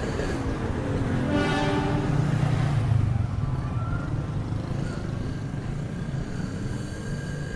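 Street traffic: a motor vehicle running close by with a steady low engine hum, and a pitched passing sound about a second and a half in that peaks and fades over the next second or two.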